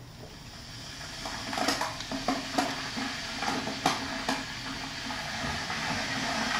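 Kettle heating water: a rushing hiss that builds steadily in level as the water nears the boil. A few sharp clicks and knocks sound over it in the first half.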